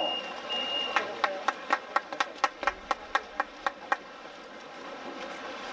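A steady high whistle blast cuts off about a second in. Then comes a run of rhythmic hand clapping, about four claps a second for three seconds, which stops near the four-second mark.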